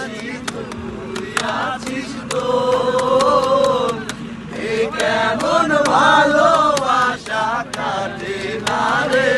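A group of men and a woman singing a Bengali song together in unison, with hand claps and hand-beaten percussion keeping time. The singing comes in phrases with short breaths between them.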